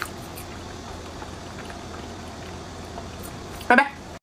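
Soft chewing with a few small mouth clicks while eating a mung bean cake, then one short vocal sound near the end, the loudest moment.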